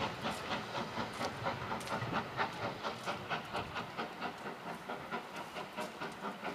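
Steam locomotive pulling a passenger train away, its exhaust beating in a steady rhythm of about three chuffs a second over the hiss of steam and the rumble of the carriages. The beats grow a little fainter about four seconds in.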